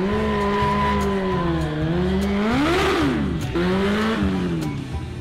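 Sport motorcycle engine revving: it holds a steady pitch, sags, then revs up and drops sharply about three seconds in, with a second shorter rev just after.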